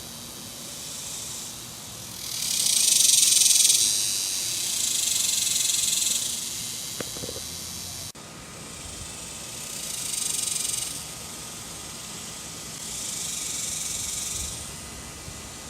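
Male cicada singing its mating call: a high, shrill buzz that swells and fades in repeated phrases a few seconds long, loudest about three seconds in.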